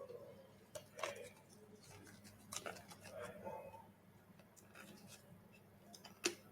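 Faint handling noises: scattered small clicks and rustles of hands working with small objects, with one sharper click near the end, over a faint steady hum.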